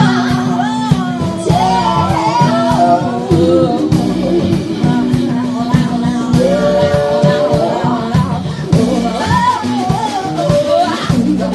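Live recording of a rock song: a singer over guitar and steady bass notes.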